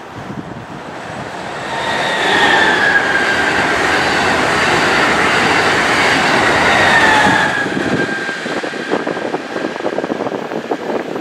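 Amtrak Acela Express high-speed electric trainset passing close by: a loud rush of wheels and air with a high whine that falls slightly in pitch. The rush swells from about two seconds in, drops off near eight seconds, and gives way to a rapid patter of wheel clicks as the train moves away.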